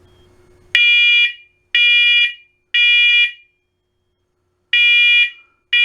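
Smoke alarm being tested, sounding loud high-pitched beeps in the temporal-three pattern: three beeps a second apart, a pause, then the next set of three beginning. This is the smoke evacuation signal.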